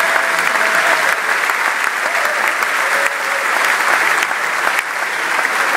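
Audience applauding steadily, a dense, even clapping that holds throughout.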